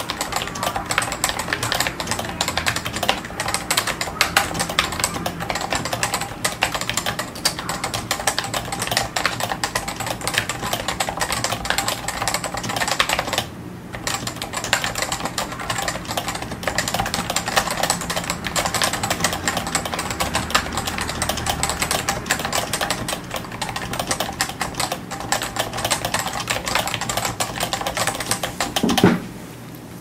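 Continuous fast typing on a CM Storm Novatouch TKL keyboard with Topre electrostatic capacitive switches and KBTalking PBT side-printed keycaps: a dense run of rapid keystrokes with a brief pause about halfway. Near the end comes a single louder thump, and then the typing stops.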